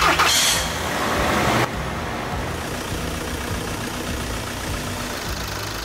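Car engine idling steadily, freshly refilled with new oil and run so the oil circulates until the oil pressure warning light goes out. A loud rushing burst fills the first second and a half, then cuts off abruptly.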